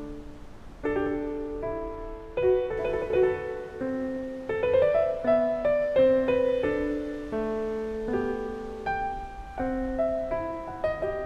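Background piano music: a slow, gentle melody of struck notes over changing chords.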